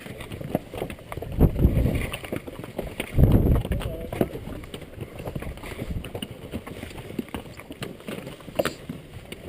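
Strong wind buffeting the microphone in gusts, two loud low rumbles about one and a half and three and a half seconds in, over a scatter of small clicks from the mule's hooves on the rocky trail.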